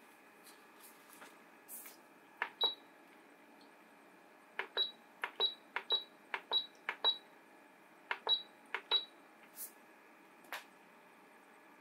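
Control buttons on an Asakuki 500 ml essential oil diffuser being pressed: each press gives a click and then a short, high electronic beep. There are about eight presses, mostly in a quick run, followed by two fainter clicks with no beep.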